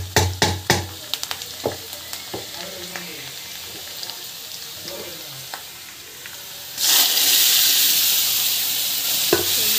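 A steel ladle clacks and scrapes against a kadai as a tempering is stirred in hot oil, with a light sizzle under it. About seven seconds in, a sudden loud sizzle starts as the mashed drumstick leaves go into the hot oil.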